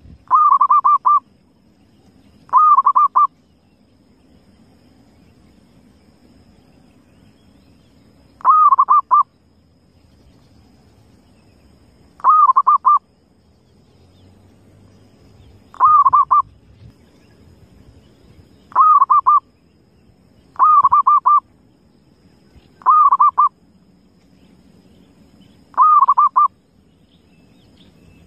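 Wild zebra dove (perkutut) cooing: a short trilled phrase of several rapid notes, repeated about nine times at irregular gaps of one to five seconds. A faint low rumble sits underneath.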